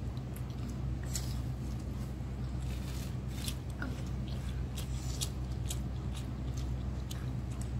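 A person eating chicken curry and rice: chewing and mouth sounds with scattered short, sharp clicks, over a steady low hum.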